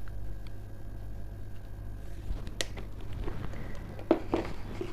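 Light kitchen handling noise while seasoning a bowl of salsa: a sharp click a little over halfway through, then a few short knocks and rustles, over a low steady hum.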